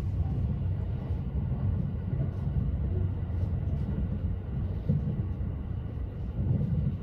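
Running noise of the Haruka limited express train heard from inside the passenger car: a steady low rumble of wheels on rail, with a few faint ticks here and there.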